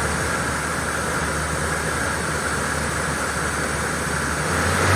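Spindle of a Mori Seiki NL3000 CNC lathe running at about 1,500 RPM, a steady hum with a hiss over it. Near the end the low hum steps up in pitch and gets a little louder as the spindle speeds up toward 2,000 RPM.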